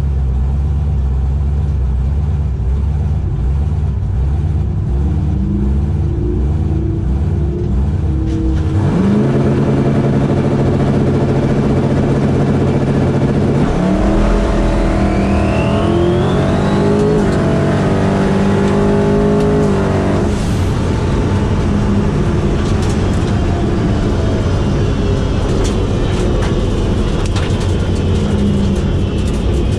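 Twin-turbo LS V8 race car heard from inside the cockpit: running steadily, then held at a steady high rev for several seconds on the line. It then launches and accelerates hard through the gears for about six seconds with a rising whine, before lifting off and coasting with wind and road noise.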